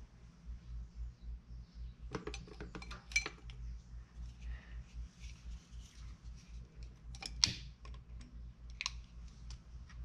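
Scattered small clicks and taps of hand tools and a lighter being handled while an alcohol lamp is lit, with sharper clicks about three seconds in and again about seven and a half seconds in.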